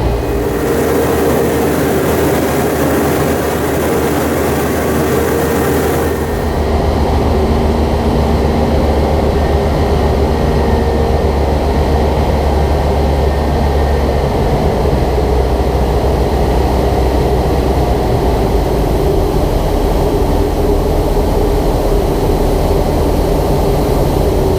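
Heavy diesel farm machinery running steadily under load, a deep low rumble with steady engine tones. The sound shifts abruptly about six seconds in.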